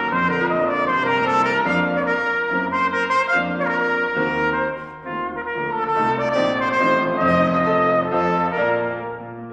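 Cornet playing a melodic line over grand piano accompaniment, with a brief break about halfway. The cornet drops out just before the end, leaving the piano.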